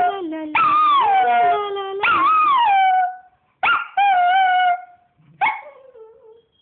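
Yorkshire terrier howling, 'singing', in three drawn-out high howls that each start high and slide down, with short breaks between them, ending with a brief falling yelp near the end.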